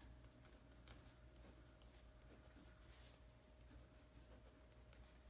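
Faint scratching of a pen writing on notebook paper, in short soft strokes, over a faint steady hum.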